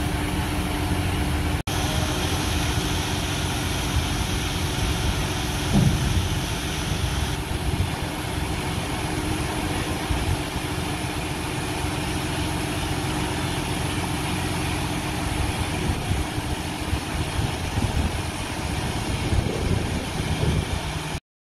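Western Star 4700SB dump truck's Detroit DD13 diesel running steadily at idle while the hydraulic hoist lowers the dump body. A high hiss drops away about seven seconds in.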